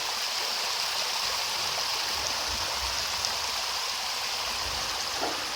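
Steady rushing of a rocky mountain stream at a waterfall, a continuous even wash of water noise.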